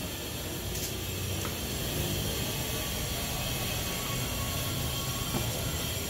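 Steady low rumble with a hiss over it, and a few faint ticks.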